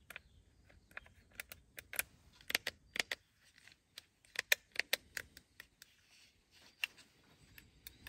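Irregular small, sharp plastic clicks and taps from a Nissan Frontier's power window master switch panel being handled and worked in the hands, with a few louder clusters of clicks partway through.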